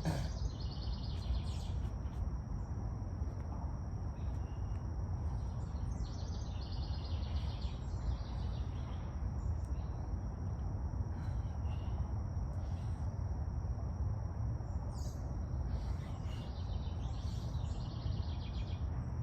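Birds chirping in short bursts of quick repeated high notes, three times, over a steady low rumble and a thin steady high tone.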